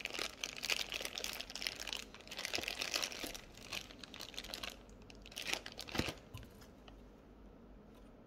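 Clear plastic bag crinkling as the bagged power adapter and cable are handled: dense crackling for the first few seconds, a last burst about six seconds in, then it dies away.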